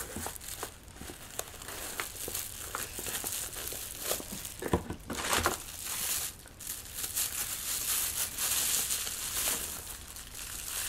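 Plastic bubble wrap crinkling and rustling as a camera lens is unwrapped, with scattered small handling clicks at first and denser crackling in the second half.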